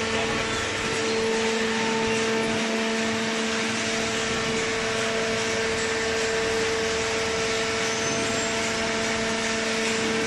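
Hydraulic paper baler running with a steady, even machine hum.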